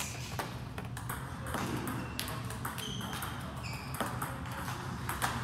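Table tennis ball struck with a paddle on backhand drives and bouncing on the table: a run of sharp, irregularly spaced ticks.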